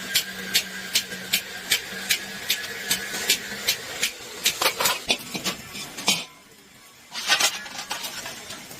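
Iron plate being struck, sharp metallic blows at a steady two to three a second over a low machine hum, turning irregular about halfway through. The blows stop for about a second near the end, then resume.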